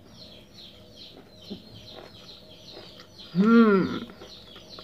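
Small birds chirping faintly and repeatedly throughout. About three and a half seconds in comes one loud, short "mmm" from a person tasting food, its pitch rising then falling.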